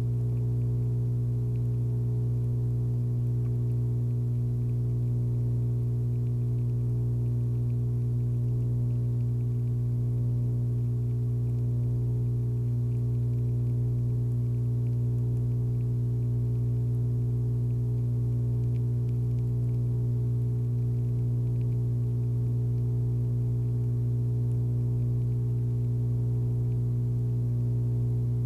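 A steady low hum with many overtones, unchanging in pitch and loudness throughout.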